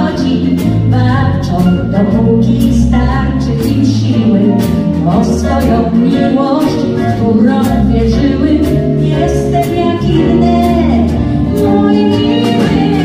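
Live pop band music over a steady drum beat, with bass, guitars and keyboard, and a woman singing.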